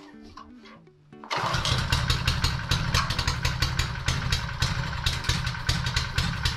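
Plate compactor's small gasoline engine starts suddenly about a second in and then runs steadily and loudly with a fast, even rattle.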